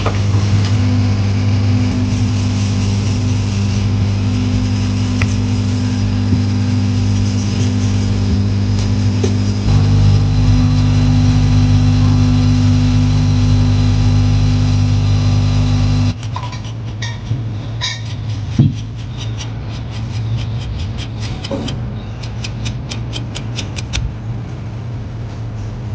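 Steady low mechanical hum with a fixed pitch, like a small motor or blower running. It gets louder about ten seconds in and cuts off sharply about sixteen seconds in. After that come scattered light clicks and, near the end, a quick run of ticks.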